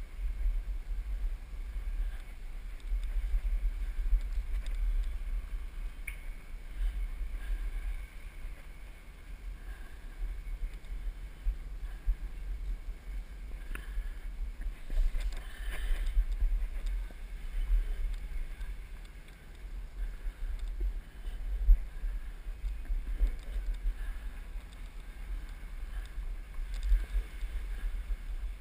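Low, uneven rumble and buffeting on the camera's microphone, swelling and dipping, with one brief louder knock about three-quarters of the way through.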